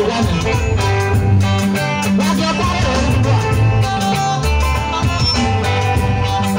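Live band music with an electric guitar playing over a steady beat and a low bass line.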